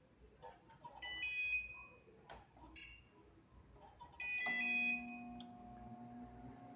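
Electrolux microwave oven's keypad beeping a few times as it is set, then the oven switching on and running with a steady low hum, the test run after its relay was replaced.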